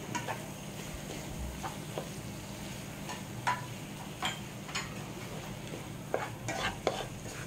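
Plastic spatula stirring okra, onion and tomato pieces through masala in a non-stick kadai, giving irregular light taps and clicks against the pan, several in quick succession near the end, over a faint steady sizzle.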